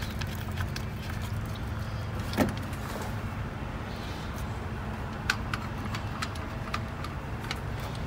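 Scattered light clicks and taps of hands handling engine parts and connectors, with one sharper click about two and a half seconds in, over a steady low hum.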